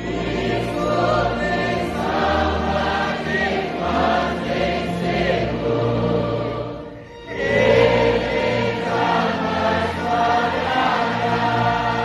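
A large congregation singing a hymn together, with a short break between lines about seven seconds in.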